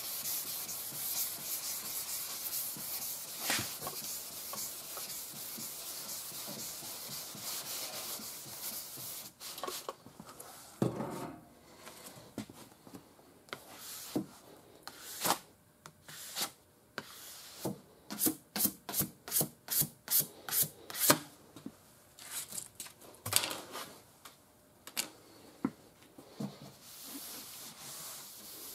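Sandpaper wet sanding primer on a car body panel: a steady scratchy rubbing for about the first nine seconds, then separate short strokes, quickest in the middle at about three a second.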